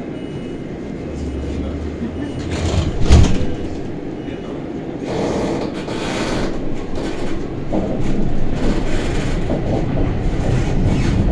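Cabin noise of a 2003 Iveco city bus under way: steady engine and road noise with a sharp knock about three seconds in. The noise grows louder from about five seconds in.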